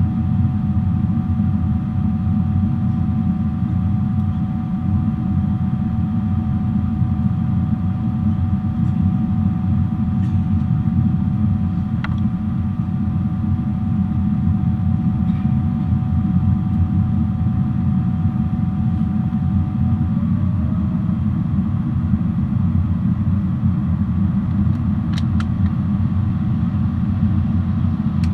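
Cabin noise of a Boeing 777-300 airliner in flight: a steady, loud low rumble of engines and airflow, with a faint steady engine whine above it that shifts to a different pitch about two-thirds of the way through.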